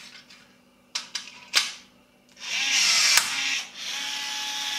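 Milwaukee M12 cordless rivet gun pulling a blind rivet. A few light clicks come first. Then the motor runs loudly for about a second as it pulls, with a sharp snap partway through as the rivet stem breaks. It then runs more quietly with a steady whine as it releases and resets.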